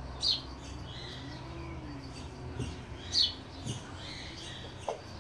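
Birds calling: short, high chirps, two sharper descending ones standing out about a third of a second in and again about three seconds in, over a faint steady hum.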